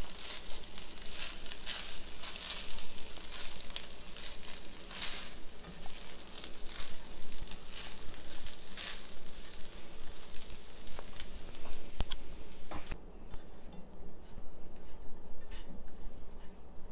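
Fried rice sizzling in a hot pan as it is stirred and turned with a spatula, with scattered knocks and scrapes of the spatula against the pan. The sizzle quietens about three-quarters of the way through.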